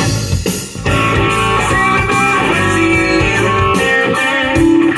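Guitar-led music played through a Mercedes-Benz's factory car stereo, streamed from a phone over a Bluetooth adapter. The playback is clear, with no static or hiss.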